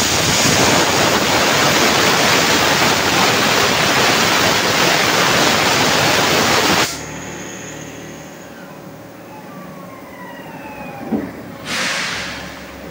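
Compressed-air blow gun hissing loudly for about seven seconds, then cutting off suddenly, leaving a faint whine that falls in pitch as the spun-up transmission part coasts down.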